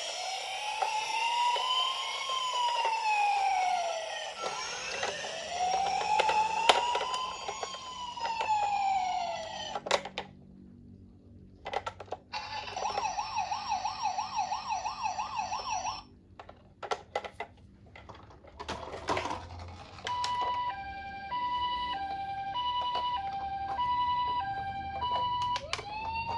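Toy ambulance sirens sounding in turn: first a slow rising-and-falling wail, then a short fast warbling yelp, then a two-tone hi-lo siren alternating about twice a second. Clicks and knocks come between the siren patterns.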